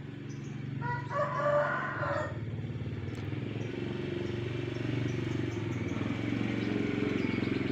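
A rooster gives one short crow about a second in. An engine hums steadily underneath, slowly growing louder.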